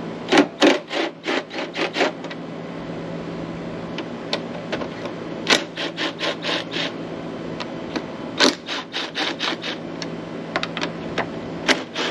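Ratchet with an 8 mm socket on a long extension, clicking in quick runs as screws are backed out of an outboard's midsection cowling. There are several bursts of clicks over a steady low hum.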